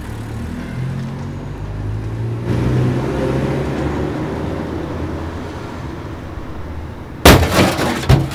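Ford car driving on a snowy road: a steady engine drone heard inside the cabin, then, from outside, a rushing noise of tyres and wind as the car pushes through deep snow. About seven seconds in, a sudden loud crash cuts in and lasts about a second.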